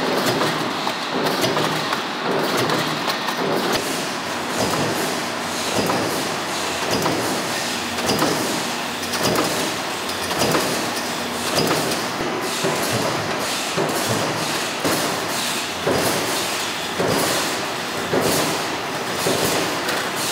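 Oil filter production-line machinery running: a continuous mechanical din with frequent clanks and knocks.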